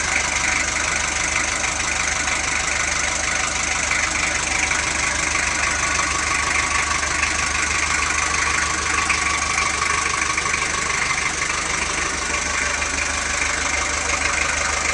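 Toyota Land Cruiser BJ42's 3B four-cylinder diesel engine idling steadily with an even diesel clatter.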